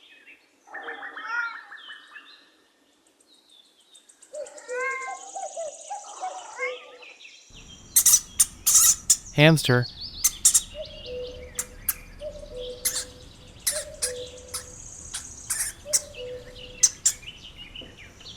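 A domestic cat meowing, two calls a few seconds apart. Then, after a cut, a hamster's sounds: a run of sharp clicks and short high squeaks.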